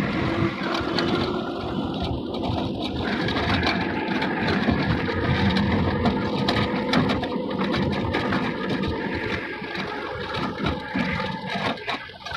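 Auto-rickshaw's small single-cylinder engine running steadily as the three-wheeler drives along, heard from inside its open cab with road and traffic noise.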